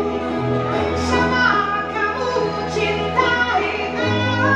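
A woman singing lead vocals live with a rock band of electric guitar, bass guitar and drums, her voice holding long notes that slide in pitch.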